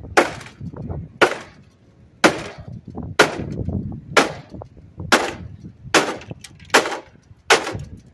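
Claw hammer striking the plastic housing of an electric snow blower, nine sharp blows about one a second, to knock the housing apart where a screw would not come out.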